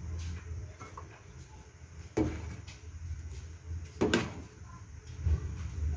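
A metal ladle knocks twice against the rim of an aluminium cooking pot of soup, about two seconds apart, each knock ringing briefly, over a steady low hum.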